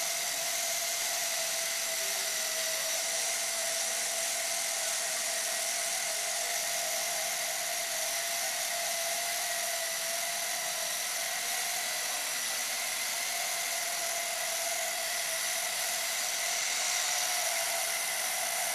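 Toy quadcopter's four small electric motors and propellers running in flight: a steady high-pitched whine that hardly changes.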